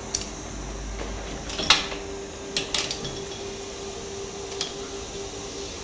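Ring spanner clinking on a motorcycle fork's top cap as the cap is undone: a handful of sharp metal clicks, the loudest about two seconds in. A steady hum runs underneath.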